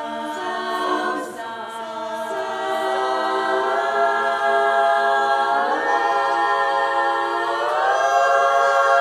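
Women's barbershop chorus singing a cappella, holding sustained chords at the close of a song. The voices swoop up into a new chord about halfway through and again near the end, and the sound grows louder.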